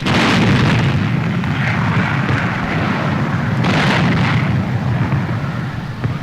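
Newsreel soundtrack of a bomb blast on a ship: a sudden explosion followed by a long, heavy rumble, with a second blast just under four seconds in.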